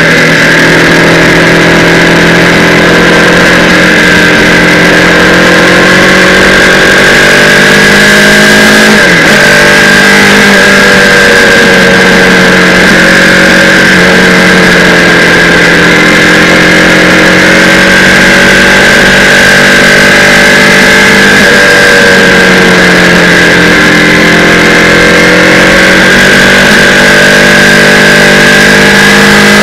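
Kawasaki Z800's inline-four engine running at highway cruising speed, heard from a camera mounted on the bike. Its pitch holds fairly steady, with two sharp dips and recoveries, about a third of the way in and again about two-thirds of the way in, as the throttle is eased and reopened.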